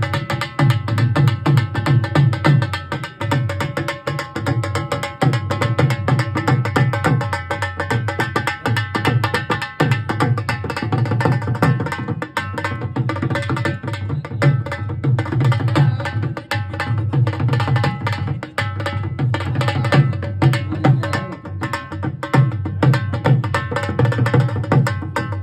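Dhol drum played in a fast, continuous rhythm, deep bass strokes alternating with sharper high strokes, over steady held tones from an accompanying instrument or backing track.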